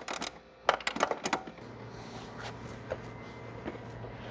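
Wrenches clicking and clinking on the steel bolts of a snowmobile's A-arm mounts as they are tightened, in a few quick bursts in the first second and a half. After that only a faint steady low hum.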